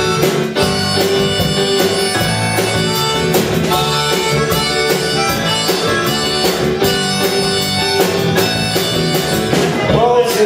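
Live band playing an instrumental passage: a harmonica holding notes over piano chords struck to a steady beat.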